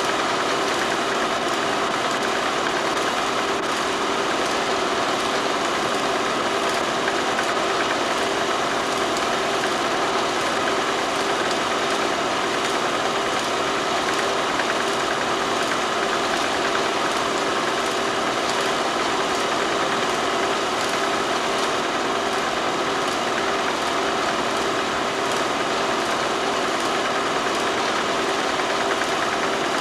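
Steady mechanical running noise with a hum and a faint, evenly repeating ticking.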